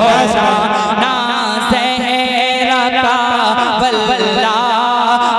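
A man's voice singing a naat in long, wavering melismatic lines over a steady held drone.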